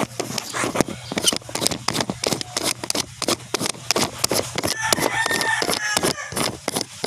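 Close handling noise: rapid, irregular clicks, knocks and rubbing of fingers on the phone and its microphone, over a steady low hum.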